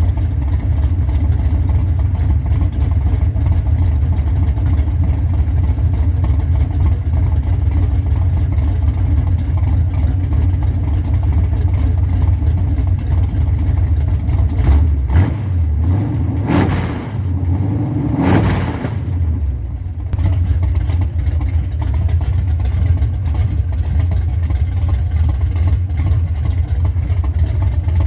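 Chevy 383 stroker small-block V8 running through open long-tube headers with no mufflers: a loud, lumpy idle, blipped up and back down twice about two-thirds of the way through, then settling back to idle.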